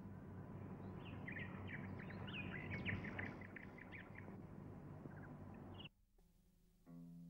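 Small birds chirping and twittering in rapid short calls over a steady outdoor background hiss. The sound cuts off abruptly about six seconds in, and faint held music tones begin near the end.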